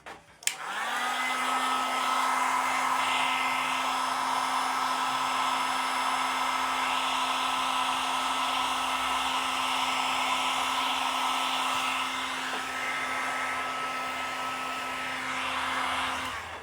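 Hair dryer switched on with a click about half a second in, quickly spinning up, then blowing steadily with an even motor hum and rushing air before cutting off near the end, drying freshly spread glue on a speaker cone repair.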